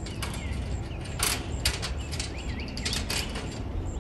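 Irregular metallic clicks, taps and scrapes from hands working the aluminium bottom rail of a greenhouse frame, a handful of sharp knocks spread across a few seconds. Faint bird chirps behind.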